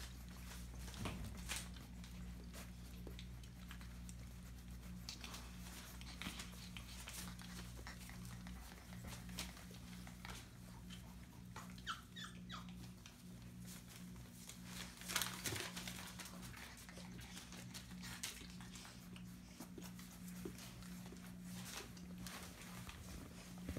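Young chocolate Labrador puppies giving a few short, high squeaks about halfway through, among scattered small clicks and scratches of the puppies moving about, over a steady low hum.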